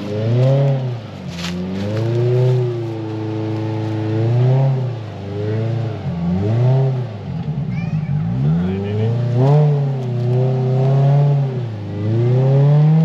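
Polaris RZR side-by-side engine revving again and again, its pitch climbing and dropping every second or two as the throttle is worked on a trail obstacle. There is a sharp knock about a second and a half in.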